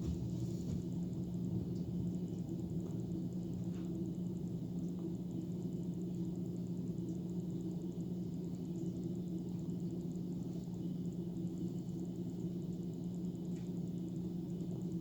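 A steady low hum with two constant tones, and a few faint short clicks spaced several seconds apart.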